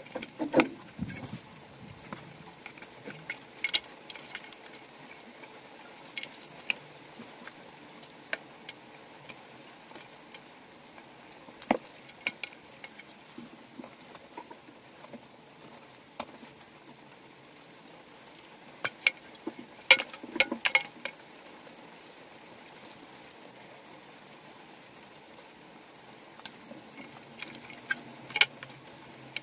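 Scattered clicks, taps and small knocks of cables and hands working inside a metal consumer unit enclosure, with a cluster of louder knocks about two-thirds of the way through.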